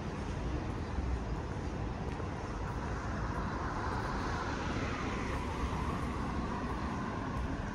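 City road traffic: a steady wash of passing cars and engine rumble, with one vehicle swelling past about halfway through.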